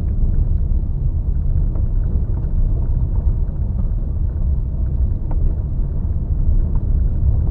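Steady low rumble of a Hyundai HB20 1.6 automatic driving on an unpaved gravel road, heard inside the cabin: tyre and road noise with the engine underneath.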